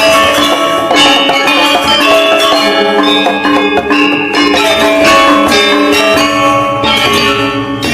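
Balinese gamelan ensemble playing a tabuh kreasi: bronze metallophones struck with mallets, many ringing tones overlapping in a dense, loud texture.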